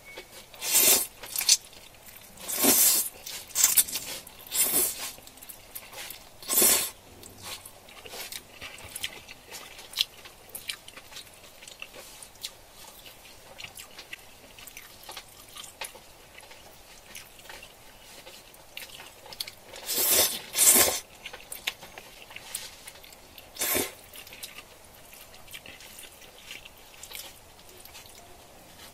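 Close-miked eating: biting and chewing, with a handful of louder noisy bursts in the first seven seconds and again about twenty seconds in, and light clicks between.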